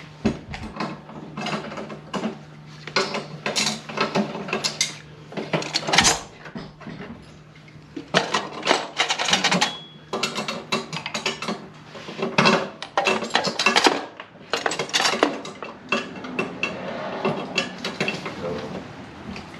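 Metal hand tools and plumbing parts clanking and rattling in short, irregular bursts, with a steady low hum under the first half that stops about halfway through.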